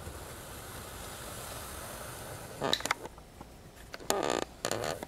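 Handling noise: three short bursts of rubbing and knocking, about halfway through and twice near the end, over a faint steady hiss.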